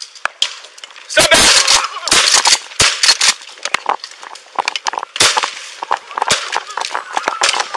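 Several sharp gunshots spread over a few seconds, including rounds from a less-lethal beanbag shotgun, mixed with the rustling and knocking of a body-worn camera jostled as the officer moves.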